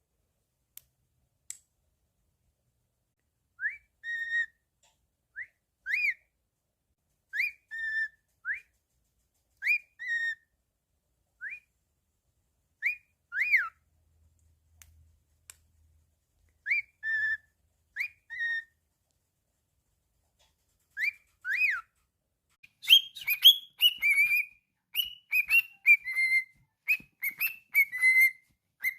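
Pet cockatiel whistling: short two-note phrases, a quick upswept note followed by a held note, repeated with pauses of a second or more, then a faster, louder run of whistled notes over the last few seconds.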